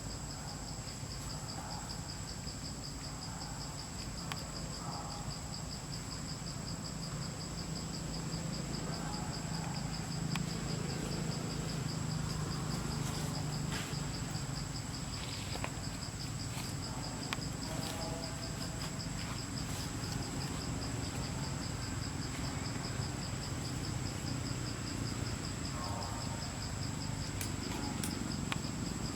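Steady chorus of shrill insects: two continuous high trills, one of them finely pulsing, over a low background hum.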